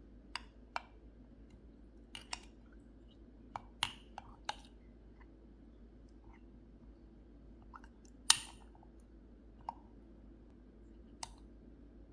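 Dishes and utensils being handled: scattered light clicks and knocks, the loudest a sharp clink with a brief ring a little over eight seconds in.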